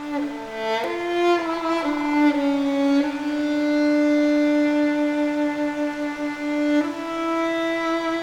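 Solo violin playing a slow melody: a few quick notes in the first second or two, then long held notes, one sustained for several seconds before the pitch moves again near the end.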